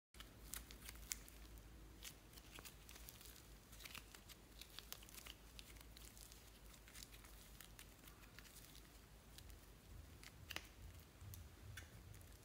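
Faint sticky crackles and small clicks of hands kneading, squeezing and pulling a lump of soft slime.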